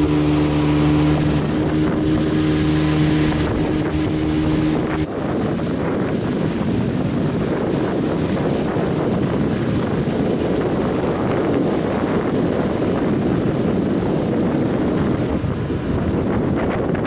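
Small motorboat's engine running steadily at speed, with water rushing past the hull and wind buffeting the microphone. About five seconds in the sound changes abruptly: the engine note fades back and the wind and water rush takes over.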